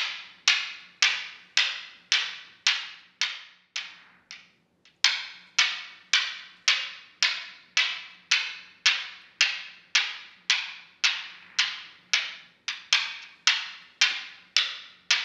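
Steel balls of a Newton's cradle clacking together at a steady pace of about two sharp clicks a second, each with a brief metallic ring. The clicks fade out around four seconds in, then resume loud about a second later.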